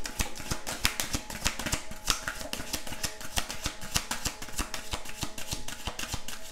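A deck of tarot cards shuffled by hand: a quick, continuous run of soft card clicks, several a second.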